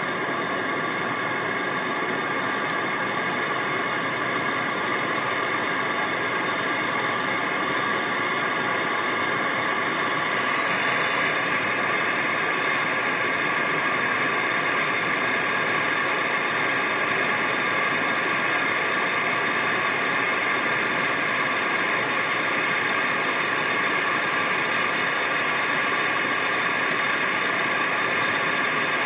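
MAP gas torch burning with a steady hiss as it heats a stuck CV joint housing.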